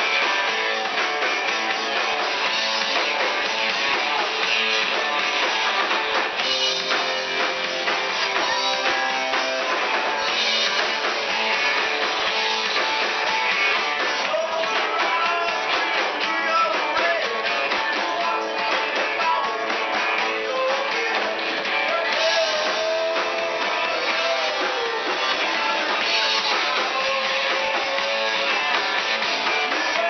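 Live band playing on electric guitars and a drum kit, the music running on at an even level.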